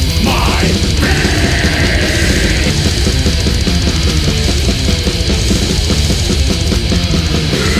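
Death metal song playing: distorted guitars over rapid, dense drumming, loud and unbroken.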